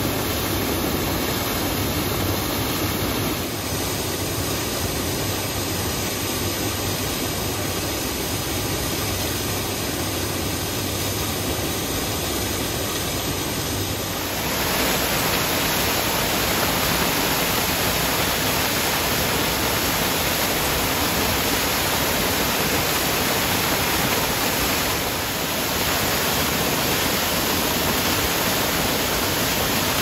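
Waterfall, white water pouring and crashing over rocks in a steady rush of noise. The sound changes in tone about three and a half seconds in and grows louder and brighter about fourteen seconds in, with a brief dip near twenty-five seconds.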